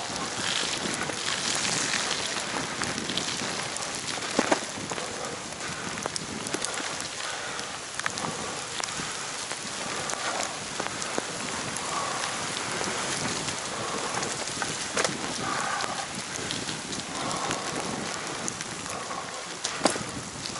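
Heavy rain pouring down and pattering on the microphone, mixed with the hiss of wheels rolling through water on a flooded road. A few sharp knocks cut through it, the loudest about four and a half seconds in and just before the end.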